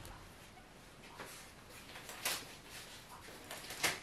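Quiet room with a few faint, short rustles and soft taps, the last one near the end the loudest: a person handling things and moving away from a worktable.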